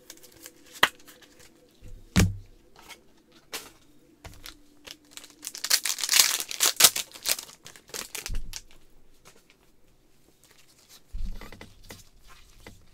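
A foil trading-card pack being torn open by gloved hands, a crinkling rip lasting about two seconds near the middle. Short taps and clicks of cards and plastic sleeves being handled come before and after it.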